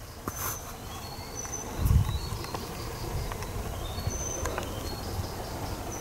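Flying insects buzzing outdoors, with a few short, high bird chirps now and then. About two seconds in there is a brief low rumble, the loudest moment.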